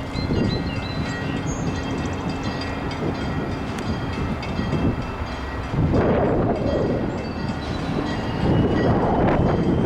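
A train running on the tracks with a steady rumble. Gusts of wind buffet the microphone in louder surges about six seconds in and again near the end.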